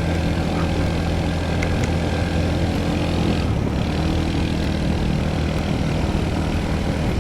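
Royal Enfield Bullet single-cylinder motorcycle engine running steadily under way, its engine note shifting about halfway through; no backfire pops.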